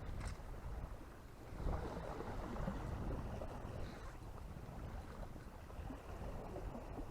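Wind rumbling on the microphone in uneven gusts, with a couple of faint ticks.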